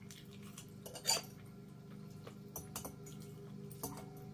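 Scattered light clicks and clinks of tableware and food being handled while eating, the loudest about a second in, over a steady low hum.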